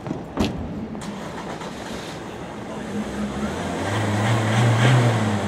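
A motor vehicle engine running with a steady low hum that grows louder to a peak near the end and then starts to ease off. A single sharp knock comes about half a second in.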